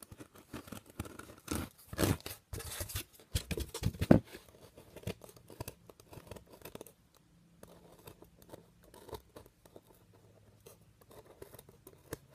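A pen writing a word by hand: a run of short scratchy strokes, loudest in the first four seconds or so, then fainter and more scattered.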